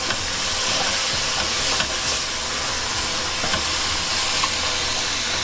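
Chopped mushrooms, carrots and onion sizzling in a hot stainless-steel pot with a steady hiss as their water cooks off, stirred now and then with a wooden spoon.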